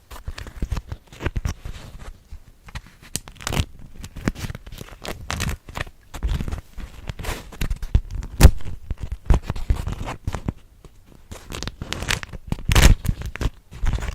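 ASMR tapping and crinkling on wax cloth and a cork pad: a run of irregular soft taps and rustles, with a louder knock about halfway through and another near the end.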